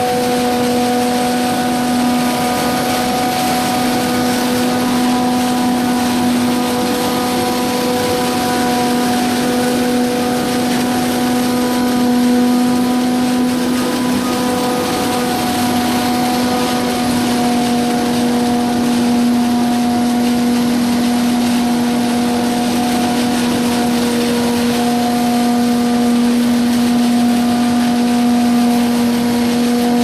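2005 Pik Rite 290 tomato harvester running at work, a loud, steady machine drone with a constant low hum that never changes pitch.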